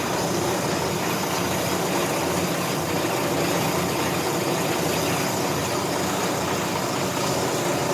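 Brake lathe running steadily with a constant whir, spinning an automatic transmission clutch backing plate held in a small chuck adapter.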